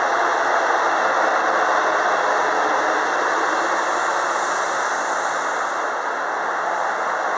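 Express train running by with a steady, loud rushing noise of wheels and cars on the rails; no horn sounds.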